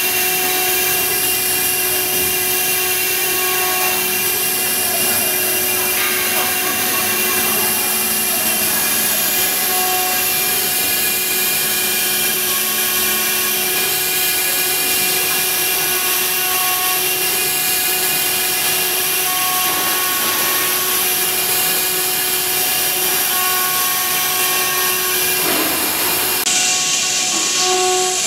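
A CNC router's spindle runs steadily at speed, with several constant whining tones over a noisy machining sound. Near the end the highest whine cuts out abruptly while the rest of the machine sound carries on.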